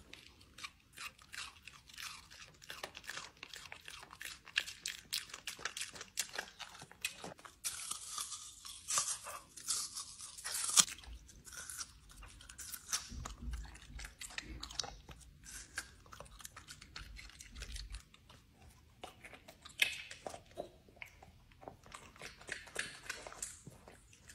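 A pet chewing and crunching on something hard, with a steady, irregular run of sharp crunches.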